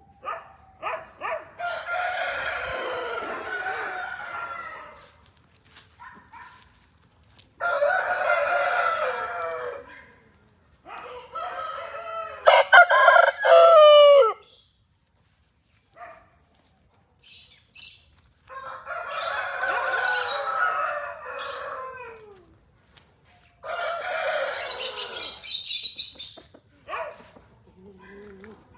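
Aseel-type game roosters crowing: about five long crows with short quiet gaps between them. The loudest comes a little before halfway through.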